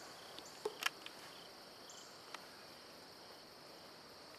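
Faint, steady high-pitched drone of insects such as crickets in the woods, with a couple of sharp clicks about a second in and another a little past two seconds.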